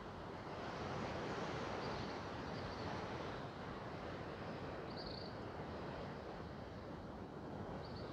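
Steady rushing outdoor ambience, like wind on the microphone, swelling about a second in, with a few faint high chirps.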